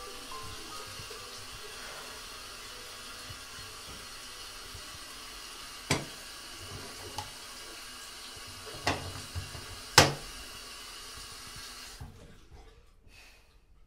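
Bathroom sink faucet running steadily into the basin, then turned off about 12 seconds in. Three sharp knocks sound over the water, the loudest near the end.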